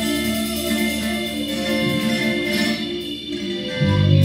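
Small live band playing an instrumental passage of a reggae-flavoured song, with several held notes layered over each other. A deep bass note comes in near the end.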